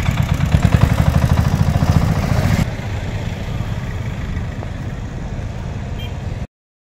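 Small cargo three-wheeler's engine chugging close by with a rapid pulsing beat, dropping to quieter, steadier road traffic noise about two and a half seconds in. The sound cuts off abruptly near the end.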